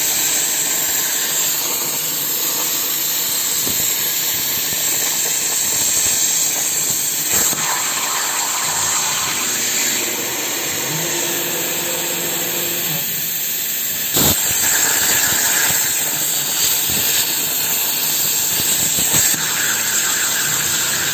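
CNC plasma cutter torch cutting metal: a loud, steady hiss of the arc and its air jet, with a sharp click about 14 seconds in.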